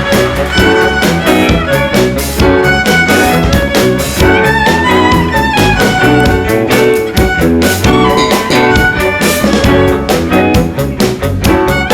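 Band music with a violin carrying the melody over a steady beat and bass.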